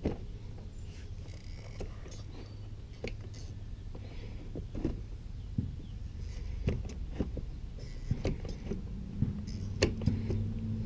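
Tin snips cutting through a plastic bumper cover: a dozen or so sharp snips at irregular intervals, over a low steady hum.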